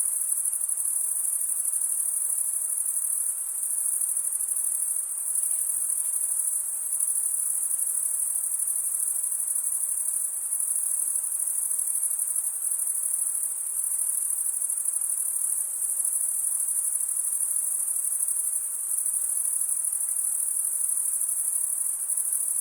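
A dense chorus of crickets trilling steadily and high-pitched, over a faint hiss of night-forest ambience.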